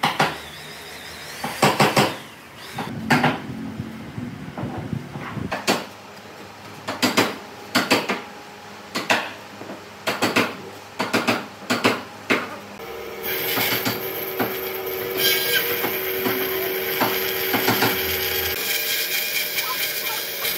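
Wood and hand tools knocking in a workshop: a dozen or so sharp, irregular strikes. About two-thirds of the way in, a power tool starts and runs steadily.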